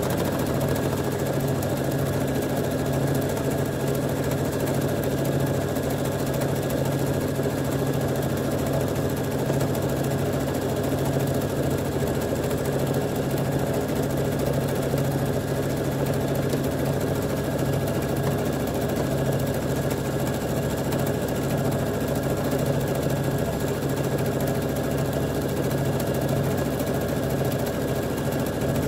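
Electric domestic sewing machine running steadily at an even speed, stitching a straight line of grid stitching through fabric pieces on soluble film.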